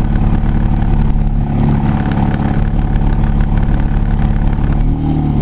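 Truck engine running while driving, heard from inside the cab, a steady low drone; about five seconds in its note changes and starts to rise. The owner says the truck doesn't run well.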